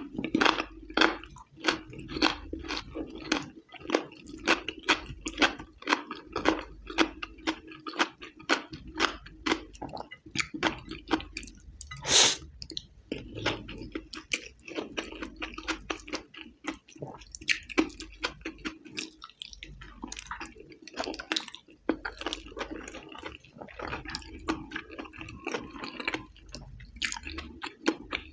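Close-miked eating sounds: a person chewing rice and saucy chicken with wet mouth and lip smacks, while her fingers squish in the sauced rice. There are many short sharp smacks throughout and one louder click about twelve seconds in.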